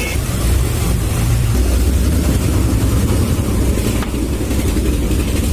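Steady, low rumble of a motor vehicle's engine running close by in street traffic.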